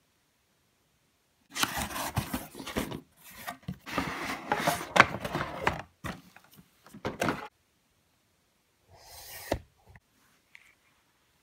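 Cardboard box and packaging being handled: rustling and scraping mixed with clicks and knocks, in several bursts. The longest stretch runs from about two to seven and a half seconds in, and a shorter burst near the end has one sharp knock.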